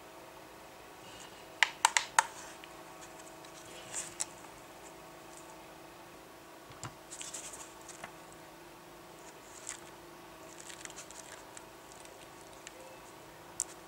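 Gloved hands handling a plastic weather station: three sharp plastic clicks close together about two seconds in, then scattered soft taps and rustles. Paper pages of the manual rustle as they are flipped near the end.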